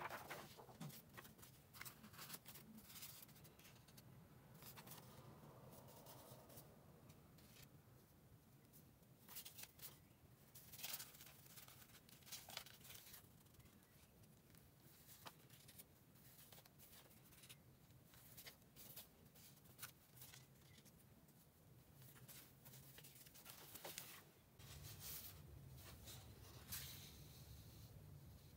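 Faint rustling and light taps of paper sheets being handled and laid down, a scatter of short sounds over a low steady hum.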